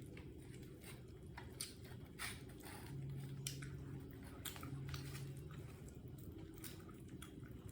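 Pet monkeys chewing crispy fried shrimp: irregular crunching and small wet bites over a steady low hum.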